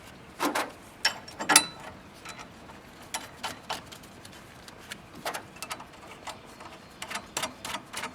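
Irregular metallic clicks and clinks of bolts and nuts being fitted to a tractor back hitch receiver, in small groups, with a few louder knocks about a second in.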